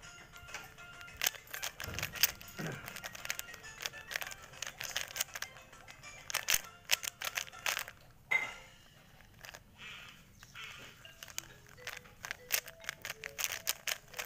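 Rubik's cube being turned quickly by hand: its plastic layers click in fast irregular runs, thinning out for a few seconds past the middle. Faint background music plays underneath.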